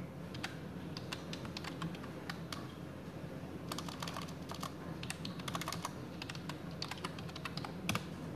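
Typing on a computer keyboard: irregular key clicks, a few scattered at first, then quick runs through the second half, with one louder click near the end.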